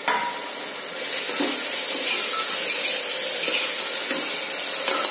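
Onions, whole spices and freshly added chopped tomatoes sizzling in hot oil in a pressure cooker while a spoon stirs them; the sizzle steps up about a second in and then holds steady.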